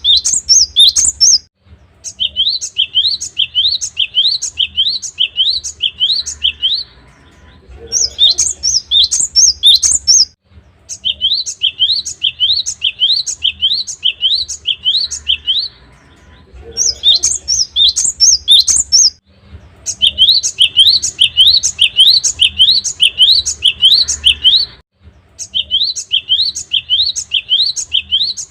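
Cinereous tit (gelatik batu) singing loudly: bouts of a rapidly repeated two-part whistled note, about two notes a second, each bout several seconds long with brief pauses between. Some bouts open with a higher, quicker phrase.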